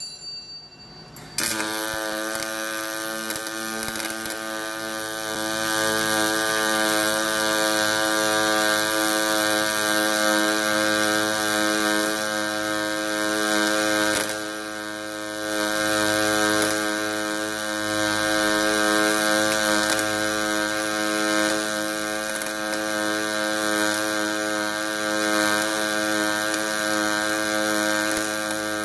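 Automatic hydraulic-cylinder welding machine running, a steady mechanical hum with many overtones and a hissy edge that kicks in abruptly about a second and a half in.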